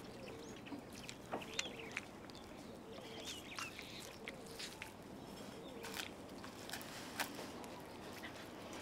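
Quiet outdoor ambience with faint bird calls and a few scattered soft clicks.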